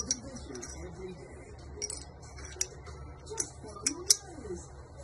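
Metal clicks and light knocks of Glock 48 pistol parts, the slide and barrel, being handled and fitted by hand. Several sharp clicks come at irregular intervals, the loudest about four seconds in.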